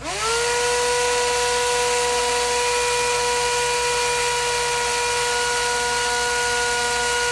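Mini 4WD electric motor spinning up on a Bandai speed checker run from fresh alkaline batteries, at about 29,000 RPM. It reaches full speed within a moment of the start and then holds a steady high whine over a hiss.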